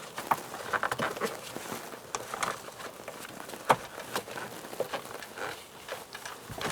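Rubber wiring grommet being pushed and worked into its hole by hand: irregular short rubbing scrapes and small clicks, with one sharper click near the middle.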